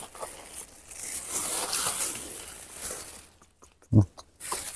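Rustling and crinkling noise, with one short voiced sound about four seconds in.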